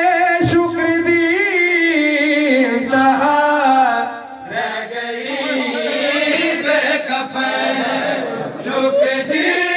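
A man's voice chanting a nauha, a Shia lament, in long held notes.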